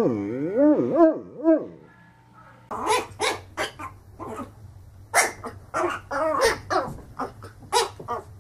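A large dark dog lying on its side gives a howling whine whose pitch wavers up and down, fading out about a second and a half in. After a short pause, a small fluffy puppy yaps rapidly at its own reflection in a mirror, two to three sharp yaps a second.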